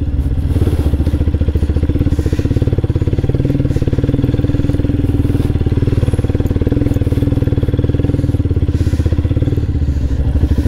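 Motorcycle engine running steadily at low revs, its firing pulses close and even, with no revving up or down.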